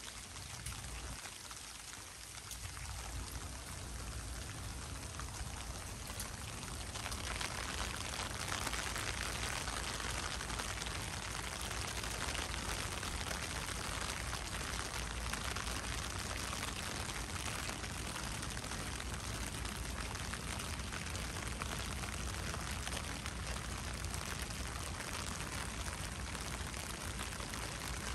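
Steady rush of running, pouring water, growing louder about seven seconds in and then holding even.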